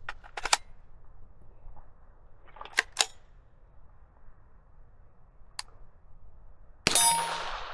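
A single unsuppressed shot of subsonic .22 LR fired through a muzzle compensator near the end: one sharp crack with a ringing tail. Before it come a few mechanical clicks from the gun being handled, two of them sharper about three seconds in.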